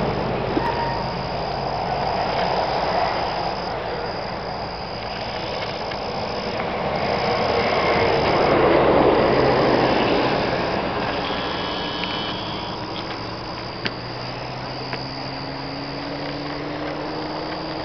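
Road traffic passing on a highway, one vehicle swelling loud about halfway through and fading away, with a steady high insect chorus running underneath.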